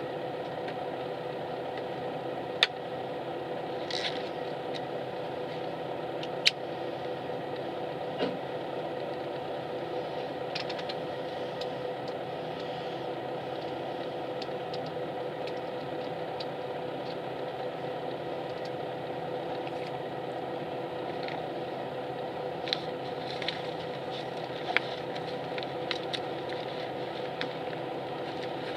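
Inside a highway bus that is standing still: the idling engine gives a steady hum, broken by a few sharp clicks and rattles.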